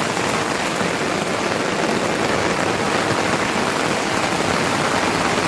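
Heavy rain falling, a steady, dense, loud patter.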